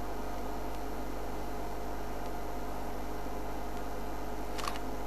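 Steady electrical hum and hiss with a couple of faint steady tones, and a single brief click about four and a half seconds in.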